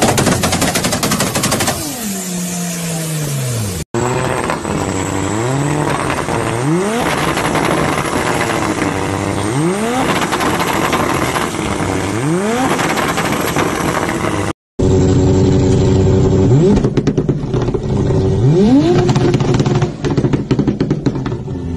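Turbocharged car engines with anti-lag, revved in short blips that rise and fall in pitch every couple of seconds, with rapid pops and bangs from the anti-lag system over the revs. The sound cuts abruptly between clips twice.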